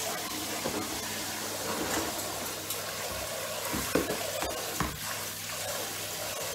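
Kitchen tap running into a sink as plates are rinsed, a steady rush of water, with a couple of knocks from the dishes and washing-up bowl about four and five seconds in.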